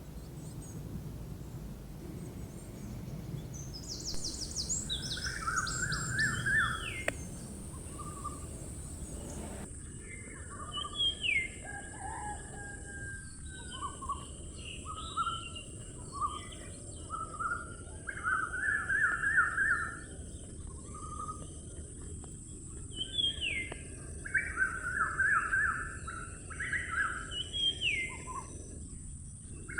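Birds chirping and singing in short repeated phrases, with a steady high-pitched tone starting a few seconds in.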